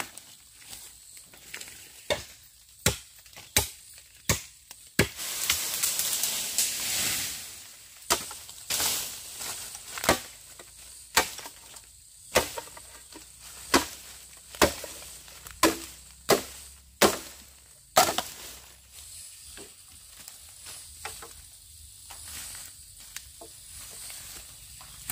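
Chopping wood: a run of sharp single blows, roughly one a second, with a few seconds of hissing noise between them early on.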